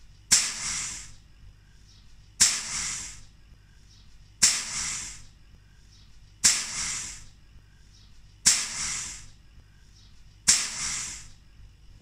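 Refrigerator tubing being flushed with petrol: six sharp hissing spurts of air and petrol blow out of the line, about two seconds apart, each starting suddenly and dying away in under a second.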